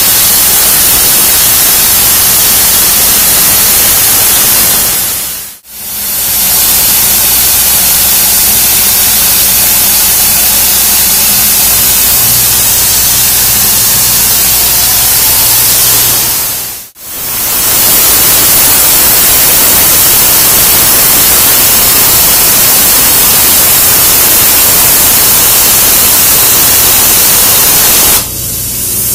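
CNC plasma cutter torch cutting through steel plate: a loud, steady hiss of the arc and air jet. It dips out briefly twice and falls quieter near the end.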